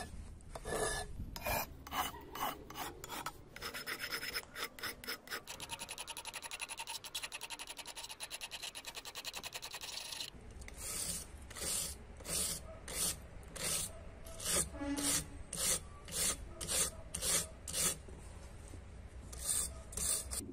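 Hand file rasping across the steel jaws of old carpenter's pincers, filing the cutting edges. It goes in strokes of about two a second, with a run of much quicker, shorter strokes in the middle and a short pause before two last strokes near the end.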